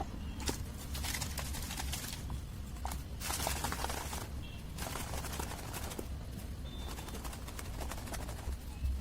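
Toothpaste slime being stirred and squished, giving wet crackling and clicking in bouts of about a second, over a steady low hum.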